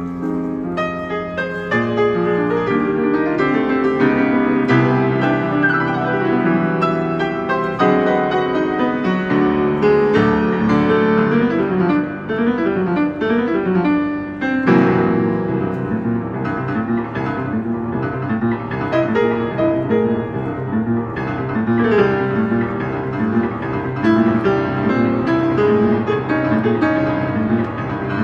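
A grand piano played solo with fast, busy chords; about halfway in, a fuller low bass comes in under the right hand.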